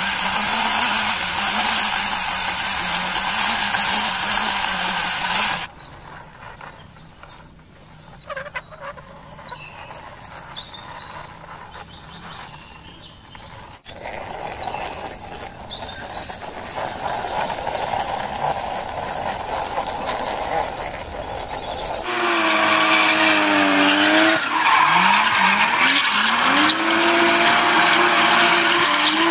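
Vehicle engine sounds that change from one segment to the next: a loud steady engine run with a low hum at first, a much quieter stretch in the middle, then engine revs that rise and fall and climb again in pitch near the end.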